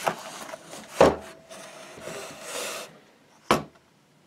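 A plastic mini ammo can being handled and set down on a table: rubbing and sliding noise, with a knock about a second in and a sharper, short knock around three and a half seconds.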